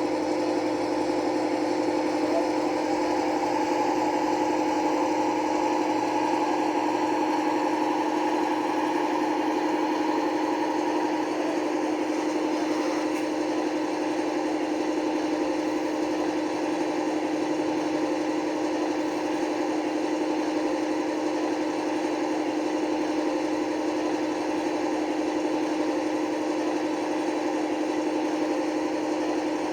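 Model Class 55 Deltic locomotive's sound decoder playing a steady Napier Deltic diesel idle through the model's small speaker. A higher tone in the sound eases off about eleven seconds in.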